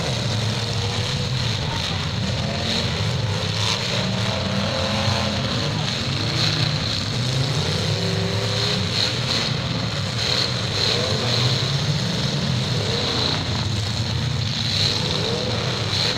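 Several demolition derby cars' engines revving up and down, with short bangs of metal crashing on metal at intervals as the cars ram one another.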